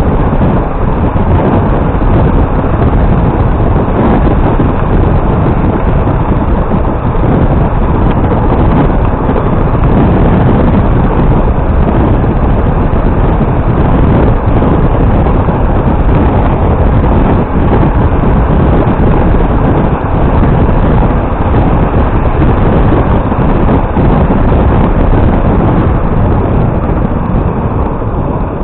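Motorcycle ride with a steady, loud rush of wind on the microphone covering the engine.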